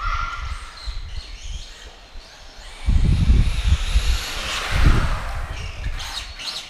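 Electric motor and drivetrain of a Tamiya TB03-D radio-controlled drift car whining, the high whine rising and falling in pitch with the throttle. Heavy low rumbling bursts come about three and five seconds in.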